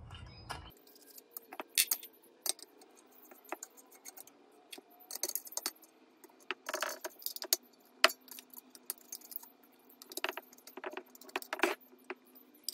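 A 3/16 hex key working screws into a metal mounting bracket on the back of an EV charger housing, making irregular light metallic clicks and clinks.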